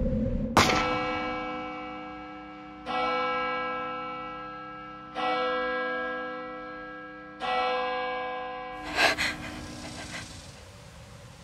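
A bell tolls four times, about two seconds apart, each stroke ringing out and fading slowly. Near the end comes a short, sharp gasping breath.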